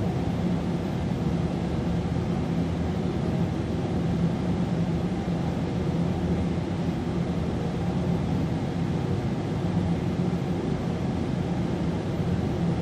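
A steady low background drone with a faint hiss above it, unchanging throughout.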